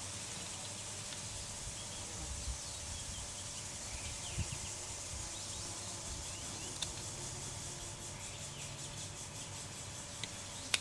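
Outdoor background hiss with faint bird chirps, and a few soft knocks from work on the tire.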